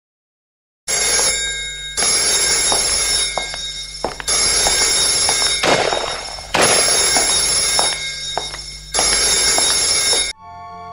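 A bright, bell-like ringing sound effect, heard five times starting about a second in, roughly two seconds apart. Each ring starts sharply and dies away.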